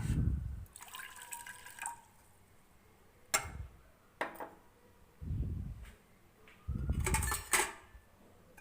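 Half a cup of water being poured into a pan of honey, lemon and ginger juice and powdered sugar, with a few sharp clinks and dull bumps of the cup against the pan.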